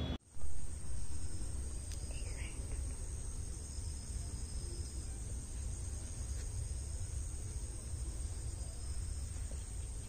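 Crickets chirring steadily in one high, even tone over a low rumble. A short thump comes just after the start, and a brief faint chirp about two seconds in.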